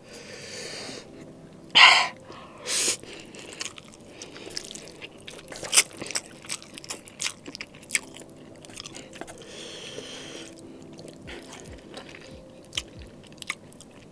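Close-miked mukbang eating of spicy instant noodles: two loud slurps about two and three seconds in, then wet chewing with many short smacks and clicks of the mouth.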